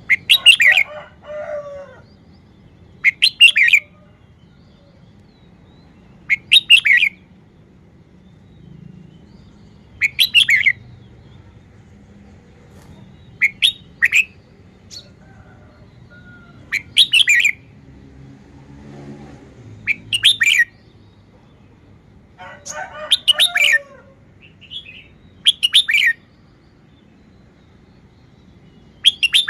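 Red-whiskered bulbul singing short, loud warbled phrases, one about every three seconds.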